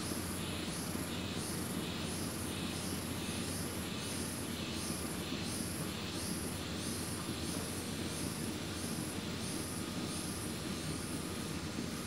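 An insect chirping in an even rhythm, about two to three high-pitched pulses a second, over a steady low rumble.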